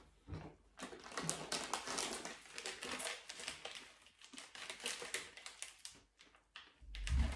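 Plastic snack wrapper crinkling and crackling in the hands as someone struggles to tear the packet open, a dense run of irregular crackles.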